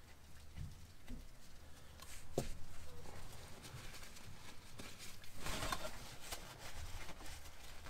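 Gloved hand working a spin-on oil filter on by hand through a plastic undertray opening: scattered light clicks and taps, a sharper knock a little over two seconds in, and a short rubbing rustle about two-thirds of the way through.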